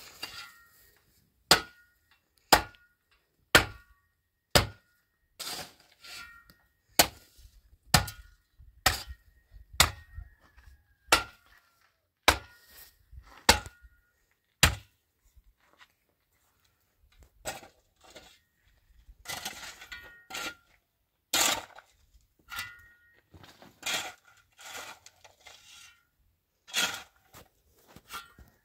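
Repeated sharp blows, about one a second, each leaving a brief metallic ring, as of hammering. The blows pause for about two seconds midway, then resume less evenly.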